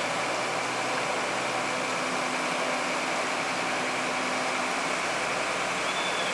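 Alerce diesel railcar set running steadily as it crosses a steel girder bridge, its engine hum under an even, steady hiss.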